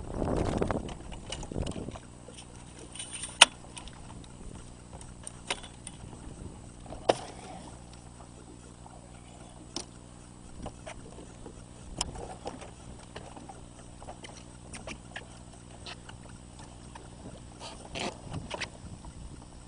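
A boat motor running at a steady hum, with scattered sharp knocks and clicks, the loudest a few seconds in. The first two seconds hold a louder rush of noise.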